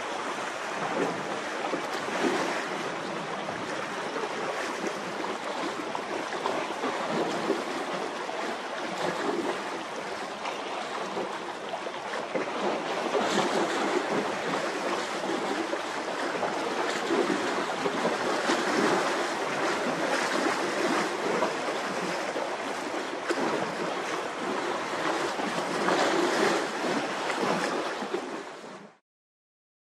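Strong wind rushing across the microphone over a rough, whitecapped sea, a steady roar of noise that swells louder in gusts and cuts off abruptly near the end.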